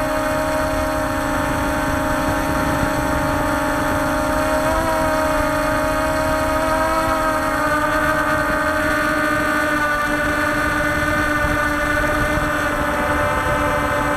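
Walkera Scout X4 quadcopter's four electric motors and propellers whining steadily in flight, heard from the drone's own camera over a low rumble of wind. The pitch wavers about five seconds in and steps up a little near eight seconds as the throttle changes.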